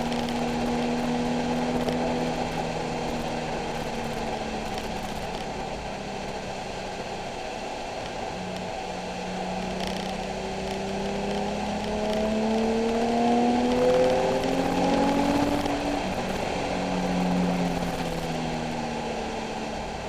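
Nissan 370Z's 3.7-litre V6 on track, holding a steady note, then revving up with a rising pitch for several seconds about halfway through before dropping back, over a steady hiss of road noise.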